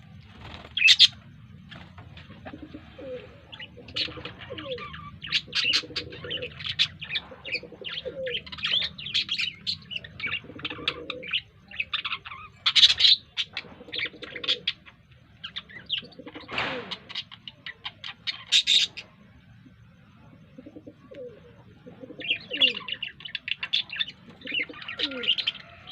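Several birds calling together: rapid high chirping and chattering, with short low calls repeated among them.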